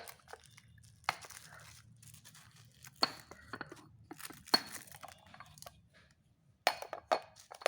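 Glass lunch boxes and their plastic lids being handled: a series of sharp knocks and clinks, about five in all. Two of them, a few seconds apart in the middle, leave a brief high glassy ring.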